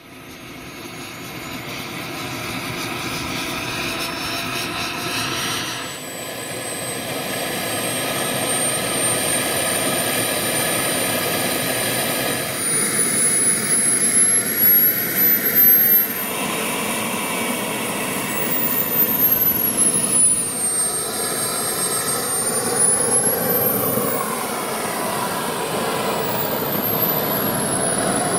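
Wren 160K Pro model jet turbine running, a steady rush under a high whine that climbs in pitch over the first dozen seconds, then drops and rises again as the throttle is moved.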